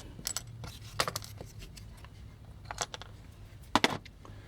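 Scattered light metallic clicks and scrapes as a 2.5 mm drill bit is worked dry into a rivet on a vintage die-cast toy robot. There is no steady motor sound; the loudest clicks come about a second in and near the end.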